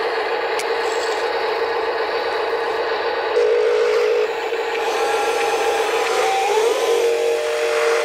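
Small electric motor and gearbox of a radio-controlled wheel loader whining as it drives, with a gritty scraping over it; the pitch shifts up and down near the end as the throttle changes.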